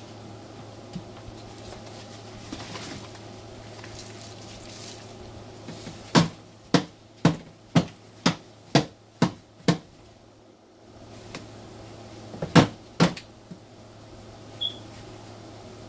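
Cardboard egg-crate flats knocked against a plastic storage tub to shake Dubia roaches off into it: a quick run of about eight knocks, then two more a few seconds later.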